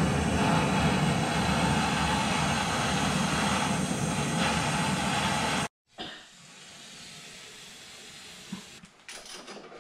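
Handheld propane torch burning with a steady loud hiss, heating a V-band clamp nut that has seized on its threads to free it. About six seconds in it cuts off. A quieter hiss and a few metallic clicks follow near the end.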